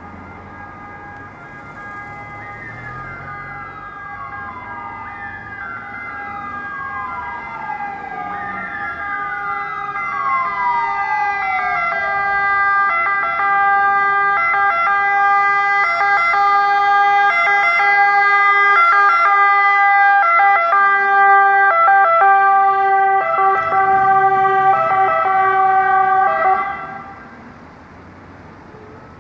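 Ambulance wail siren sweeping in pitch, growing steadily louder, then cutting off suddenly near the end.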